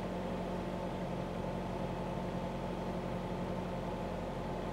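2009–2013 Honda Fit four-cylinder engine idling steadily, heard from inside the cabin, shortly after a start with a newly replaced VTEC (variable valve timing) solenoid; there is no grinding.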